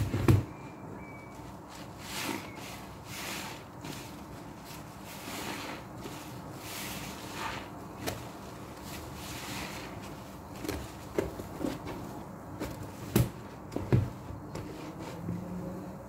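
Soaked foam sponges squeezed and kneaded by hand in thick soapy suds: irregular wet squelching and frothy crackling, with a few sharp thumps near the start and twice late on.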